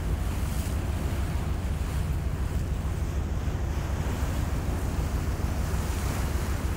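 Wind buffeting the microphone over open sea, a steady low rumble, with the wash of the sea beneath it.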